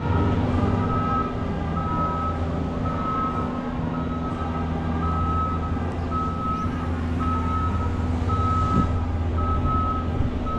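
Vehicle reversing alarm beeping over and over, roughly one beep a second, over the steady low hum of a running engine.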